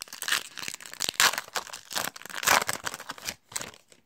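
Foil wrapper of a Panini Prizm basketball retail card pack being torn open and crinkled: a run of crackling rips and rustles, loudest about a second in and again about two and a half seconds in.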